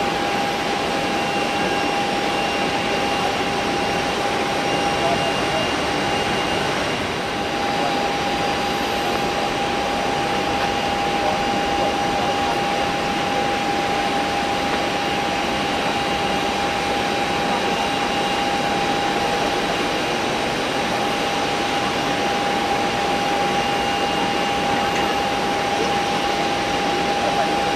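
Airliner engines on the runway: a steady whining drone with a constant high tone through it, dipping briefly about seven seconds in.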